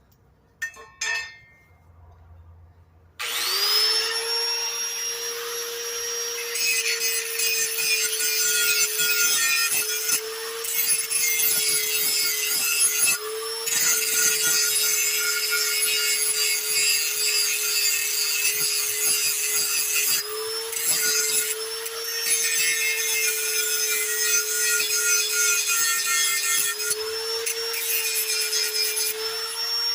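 A power grinder starts about three seconds in, spinning up to a steady high whine, and grinds the edge of a steel lawnmower blade with a dense hissing rasp; its pitch wavers briefly a few times as it works the metal.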